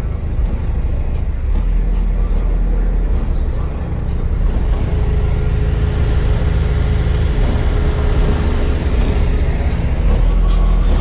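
Eight 12-inch Skar DDX subwoofers in a fourth-order enclosure playing loud, deep bass notes, with the energy heavily concentrated at the lowest pitches.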